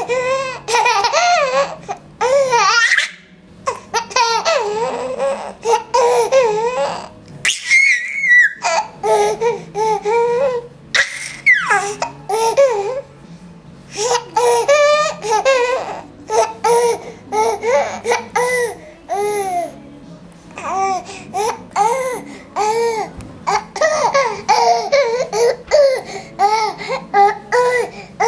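Baby laughing in repeated bursts of giggles, with babbling and a few high squeals between.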